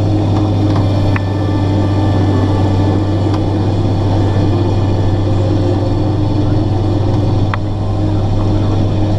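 John Deere combine harvester's diesel engine and machinery running with a steady, unchanging drone while shelling corn, with a few brief ticks.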